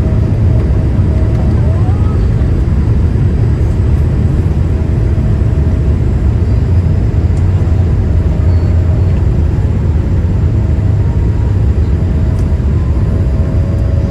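Boeing 787-8 jet engines and airflow heard from inside the passenger cabin: a steady, loud low rumble with a faint steady tone above it.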